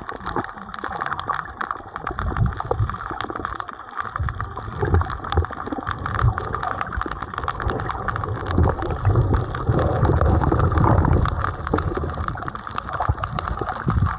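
Water gurgling and sloshing around a camera during snorkeling, a muffled low rumble scattered with small clicks and crackles.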